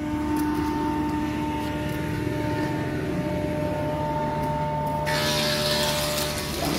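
Steady hum of running machinery with a few held tones and a low rumble. About five seconds in, a loud hiss joins it.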